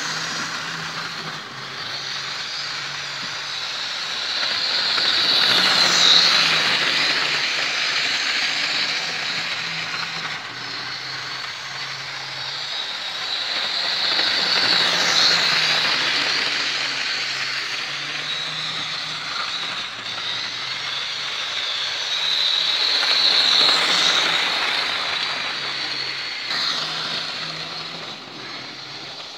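Model train running round a layout: the locomotive's small electric motor whirring and its wheels rattling over the rail joints, swelling three times, about every nine seconds, as it passes close on each lap.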